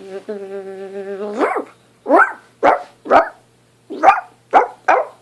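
A person imitating animals with their voice: a steady buzzing hum imitating a bee for about the first second and a half, then a run of about six short yelping barks imitating a dog.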